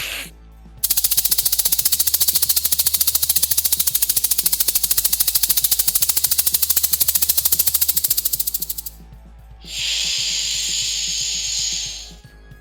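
Snake sound effects: a loud, fast-pulsing hiss lasting about eight seconds, then after a short pause a steady snake hiss of about two seconds, over a low hum.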